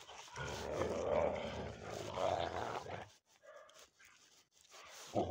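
Several dogs growling as they play-fight roughly, a continuous rumbling growl for about three seconds, then a pause broken by one short faint whine.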